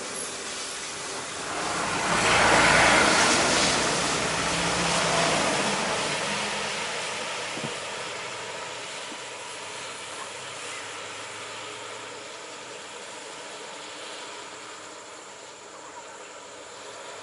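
Road traffic: a bus drives past close by, its engine and tyre noise on the wet road swelling to a peak a few seconds in, then fading into a steady hiss.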